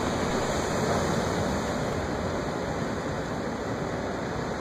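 Ocean surf breaking on shoreline rocks: a steady rush of water, slightly louder about a second in and easing a little toward the end.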